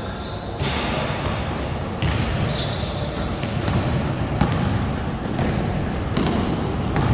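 A basketball dribbled on an indoor court: repeated bounces echoing in a large hall. Short high squeaks of sneakers on the court floor come in the first couple of seconds, over a steady low hall rumble.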